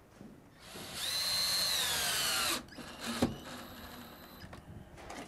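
Cordless drill driving a screw, its whine falling slightly in pitch as it loads up and then stopping abruptly after about two seconds. A sharp knock follows about half a second later.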